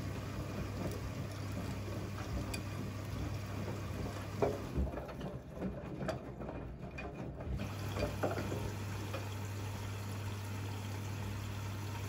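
Siemens front-loading washing machine tumbling wet laundry in its drum, the water sloshing and splashing over a steady low hum. The hiss dips for a couple of seconds around the middle, with a few louder splashes.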